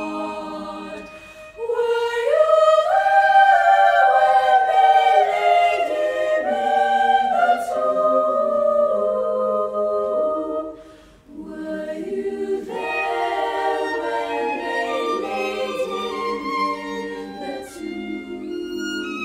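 Girls' choir singing a cappella in several parts, swelling louder about two seconds in, with a short break for breath about eleven seconds in before the voices come back.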